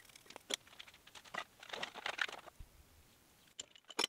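Small brush sweeping steel drilling chips off a thin steel plate: faint, scattered scratchy rustles with no machine running.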